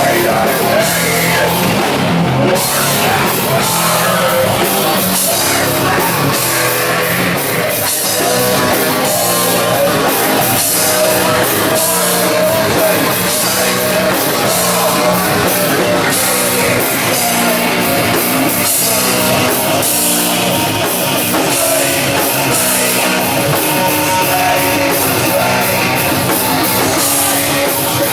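Live rock band playing loud and steady: electric guitar over a drum kit.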